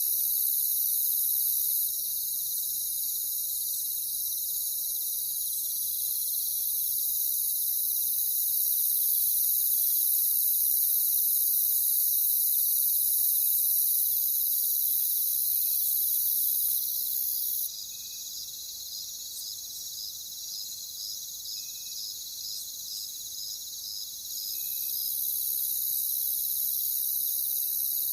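Night-time insect chorus: a dense, steady, high-pitched shrilling. For several seconds past the middle one layer of it drops away, and a rhythmic chirp of about two pulses a second stands out.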